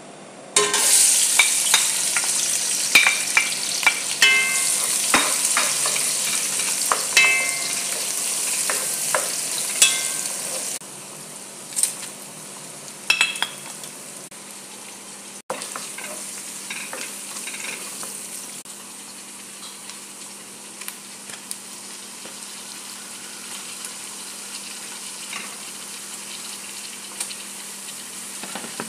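Chopped onion hitting hot oil in a pot and sizzling loudly, with a spoon clinking and scraping against the pot as it is stirred. About ten seconds in the sizzle drops to a quieter, steady frying with occasional clinks.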